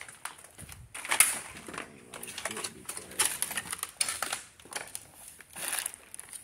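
Footsteps crunching and rustling through scattered paper and debris on the floor, in an irregular run of short clicks and crackles.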